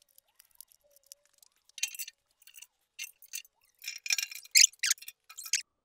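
Light metal clinks and scrapes of nuts, bolts and a screwdriver against the steel lid of a drum smoker as the top vent is bolted on, sparse at first and busiest near the end.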